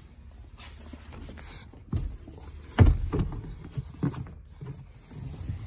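Handling noises: irregular thumps and knocks, the loudest a heavy thump about three seconds in.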